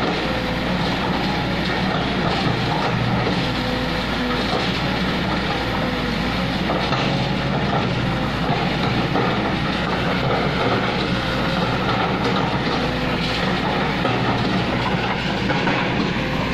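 Kobelco hydraulic excavator's diesel engine running steadily at working speed, with a continuous metallic rattle.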